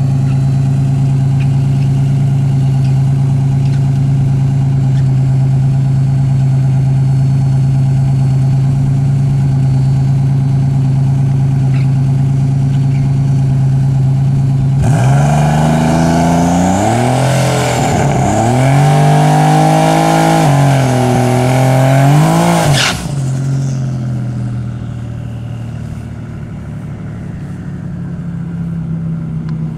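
Turbocharged Buick Grand National V6 idling steadily, then revved hard from about halfway through, the revs rising and falling several times before cutting off sharply; after that the engine runs more quietly.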